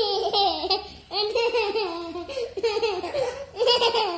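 A young child laughing and babbling in several short, high-pitched bursts.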